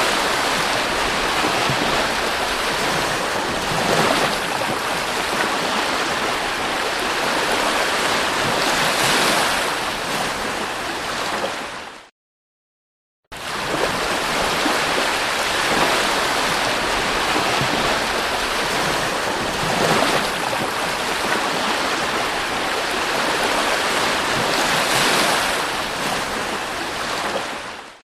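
Sea waves breaking on a beach: a steady rushing noise that swells every few seconds. It cuts out to silence for about a second roughly twelve seconds in, then resumes.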